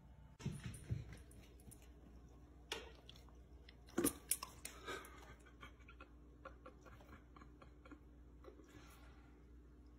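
A Labrador lapping sparkling water from a stainless steel bowl: a few short, wet laps and clinks, loudest about four seconds in, then scattered faint clicks.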